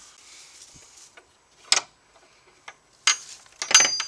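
A few sharp knocks: one a little under two seconds in, another about three seconds in, then a quick cluster near the end with a short metallic ring.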